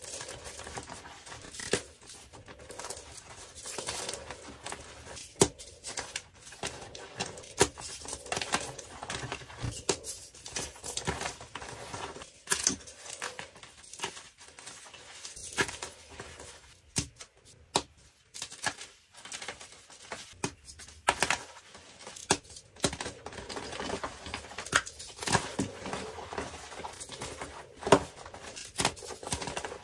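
Dyed gym chalk blocks crushed and crumbled by hand: irregular crunches and sharp snaps over a steady powdery crumbling, with the loudest crack near the end.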